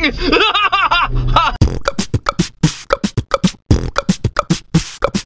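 Intro sting: a voice carries on for about a second and a half, then a fast, uneven run of sharp beatbox-style percussive hits with short pitched blips, which cuts off near the end.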